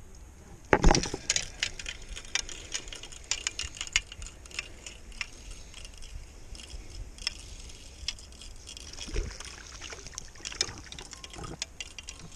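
Spinning fishing reel being cranked close to the microphone, a run of irregular rapid ticks and clicks with a thin high whine, after a loud knock of rod and jacket handling about a second in.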